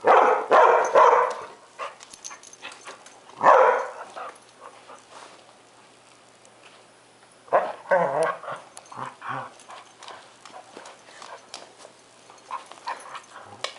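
Airedale terrier whining and barking in a frustrated tantrum over another dog's rawhide chew. There are three loud outbursts, near the start, about three and a half seconds in and about seven and a half seconds in, with softer whimpers between.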